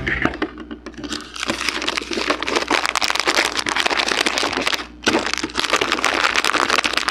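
Close-up chewing and crunching of a Twix Cookies & Cream bar, its Oreo-like cookie and chocolate crackling in rapid bites from about a second in, with a brief pause a little before the five-second mark.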